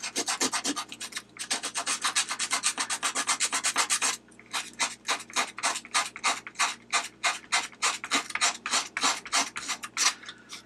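Sandpaper rubbed by hand over a rusty steel snap ring in quick back-and-forth strokes, several a second, scouring the rust off its contact edges. The strokes break off briefly about a second in and again about four seconds in.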